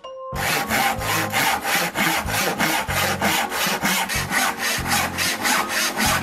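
Hand saw cutting through a wooden log in quick, even back-and-forth strokes, about five a second, starting a moment in.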